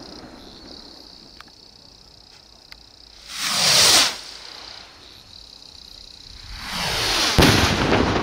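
Funke Bomben Raketen firework rockets whooshing skyward twice, each rush of noise falling in pitch as it climbs. A sharp bang comes near the end as a rocket bursts.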